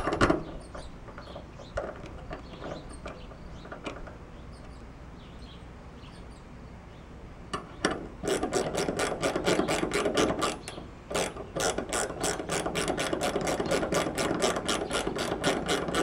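Ratchet wrench clicking rapidly as it turns a screw at the mirror arm's mounting bracket on the door frame. The clicking starts about halfway through and stops briefly once before carrying on.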